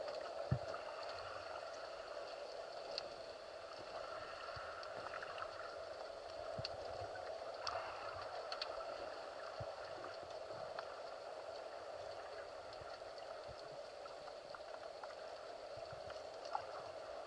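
Underwater ambience picked up through a camera housing while spearfishing: a steady low hiss with scattered small clicks and ticks.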